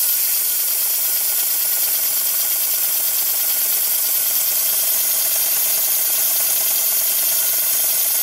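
Gauge one GWR 14xx model tank locomotive being run on compressed air for its first test turn: a steady hiss of air through the cylinders as the motion turns over.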